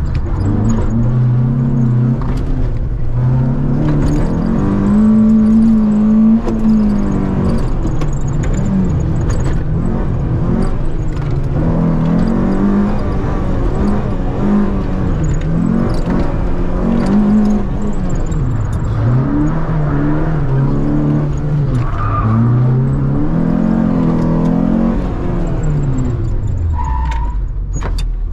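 Citroën Saxo VTS 16V's 1.6-litre sixteen-valve four-cylinder engine heard from inside the cabin, driven hard through slalom turns: the revs climb and fall again and again. Two brief high squeals are heard in the second half. Near the end the revs fall away.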